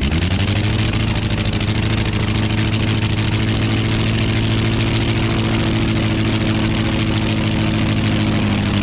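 Half-scale replica of the 60 hp ENV Type F water-cooled V8 aero engine, just caught after its propeller was hand-swung, picking up speed in the first moment and then running steadily with the propeller turning.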